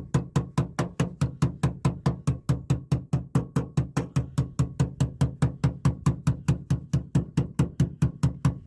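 Hammer beating a metal repair plate in fast, even strokes, about four or five a second, shaping it to the curve of a van's sill.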